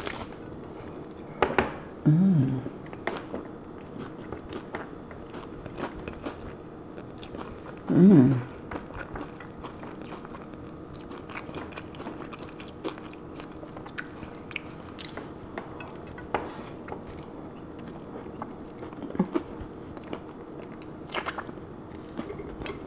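Close-up biting, crunching and chewing of a crunchy hard-shell taco, with scattered crackles from the shell throughout and a few sharper crunches. Two short hums of the voice come about 2 and 8 seconds in.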